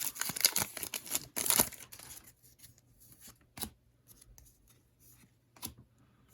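Trading cards and a foil pack wrapper being handled: a crinkly rustle for about the first second and a half, then a few faint taps as cards are set down.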